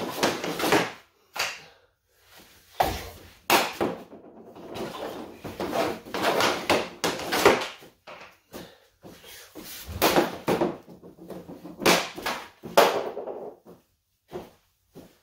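Hockey stick and puck on a concrete floor: the blade scraping and clattering on the concrete while handling the puck, with several sharp cracks of shots a second or two apart.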